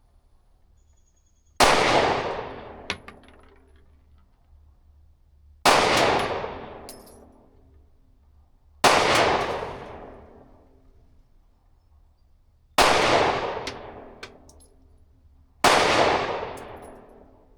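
Five single 9mm pistol shots from a Glock 43X, fired slowly about three to four seconds apart. Each shot is a sharp crack with a tail that rings on and fades over a second or two.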